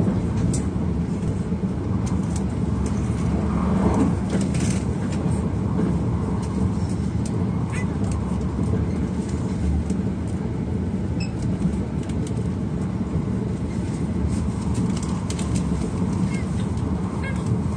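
Steady running rumble of an E6 series Komachi Shinkansen train heard from inside the passenger cabin, with a few faint clicks.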